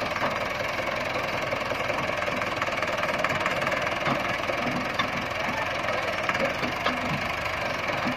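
Massey Ferguson 375 tractor's four-cylinder diesel engine running steadily, with a few faint ticks in the second half.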